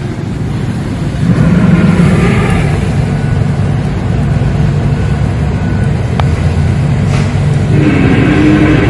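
Humpback whale song recorded underwater: long low moans over a steady rumble, with a higher held call near the end.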